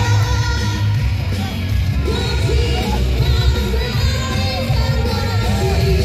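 A female singer performing an upbeat pop song live with a band, her amplified voice over a steady driving bass beat; the vocal line comes in strongly about two seconds in.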